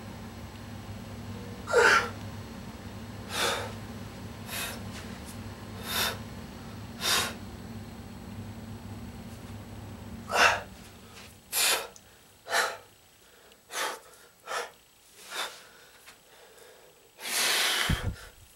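A man's sharp, forceful breaths, a dozen or so short bursts at uneven spacing and a longer one near the end, as he tenses into bodybuilding poses. A steady low hum sits behind them and stops about eleven seconds in.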